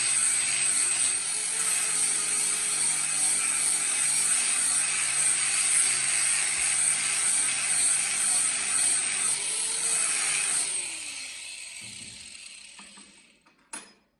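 Electric rotary power tool running with a steady hissing grind over a motor hum. About eleven seconds in it is switched off and its pitch falls as it spins down, followed by a single sharp click near the end.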